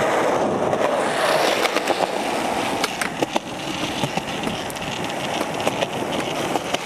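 Skateboard wheels rolling over rough concrete, a steady rumble that is loudest in the first second or so, broken by several sharp clacks of the board and trucks hitting the ground.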